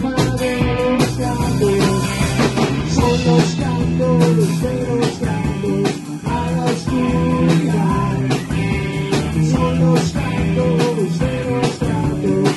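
A rock band playing live: drum kit, electric guitars and electric bass together, with steady drum strikes driving a loud, continuous groove.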